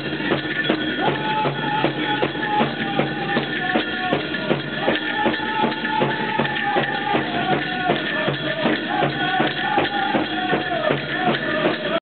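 Powwow drum group striking a large drum in a steady, even beat while the singers sing high-pitched phrases that start high and step down in pitch, a Grand Entry song.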